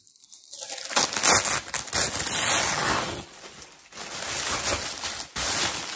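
White tissue paper rustling and crinkling as a wrapped parcel is unfolded by hand. It comes in three bursts of handling, the longest in the first half.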